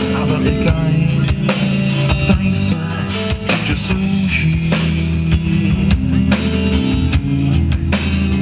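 Live rock band playing: electric guitars, a bass guitar and a drum kit, with a steady drum beat under a sustained bass line.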